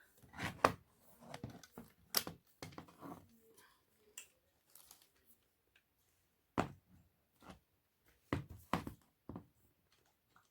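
Scattered clicks and knocks of a plastic tripod stand being handled, with a little rustling between them.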